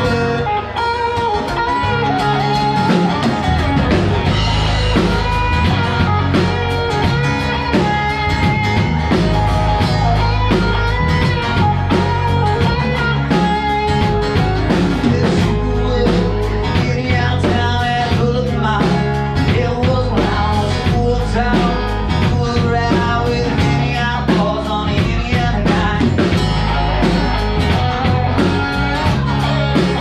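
Live band playing amplified electric guitars over a drum kit, a steady blues-rock groove with no break.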